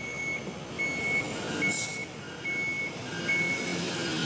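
Truck's electronic warning beeper sounding a high beep a little more than once a second, joined from about halfway by a lower beep in between, over the noise of passing truck traffic. A short hiss about one and a half seconds in.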